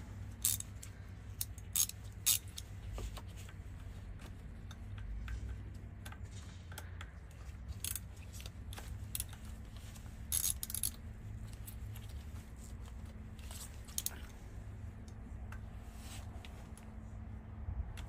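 Scattered sharp metallic clicks and taps from a ratchet and T30 Torx socket being handled and fitted onto bolts, with a cluster of clicks about ten seconds in, over a low steady hum.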